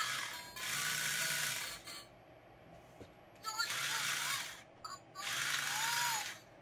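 Opened-up walking duck toy's small geared motor and gearbox whirring in three short bursts of about a second each, set off by pressing the toy's head touch sensor.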